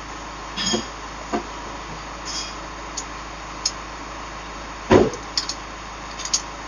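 A small bicycle wheel with its tyre being handled: a few knocks and clicks as it is moved into place, the loudest a low thump about five seconds in, followed by light clicks. A steady faint hiss runs underneath.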